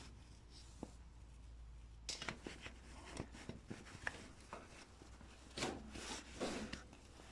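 Faint scattered clicks, taps and short scrapes of small metal parts being handled as a pin is pushed out of the tractor's starter linkage, with a few louder scrapes near the end.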